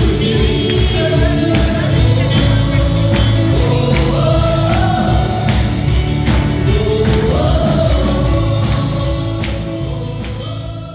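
Live gospel worship music: women singing the melody with a band of keyboard, acoustic guitar and a steady beat. It fades out over the last couple of seconds.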